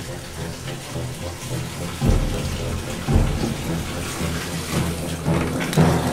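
Steady rush of running water, like a tap filling a bathtub, with low notes of music underneath that come in about two and three seconds in.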